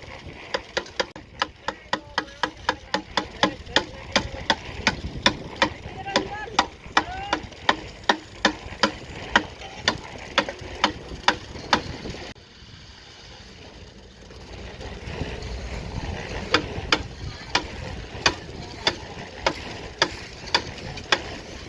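Rapid, even mechanical knocking, about four knocks a second, over a low engine rumble, with voices in the background. The knocking stops about twelve seconds in and picks up again a few seconds later.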